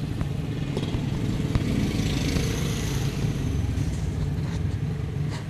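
Steady motor vehicle engine noise, swelling a little around the middle, with a few light clicks.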